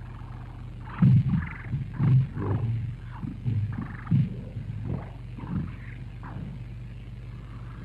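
Muffled, low-pitched voice fragments from an old magnetic tape recording, too indistinct for any words to be made out, coming in short irregular bursts over a steady low hum.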